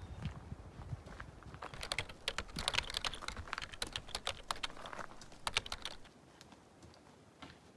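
Keyboard typing sound effect: a rapid, irregular run of key clicks lasting about four seconds, stopping about six seconds in.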